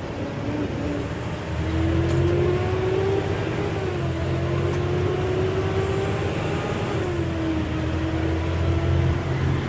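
Tandem-axle rollback tow truck accelerating on the road, its engine note climbing and then dropping back twice as it shifts up through the gears, over a steady low rumble.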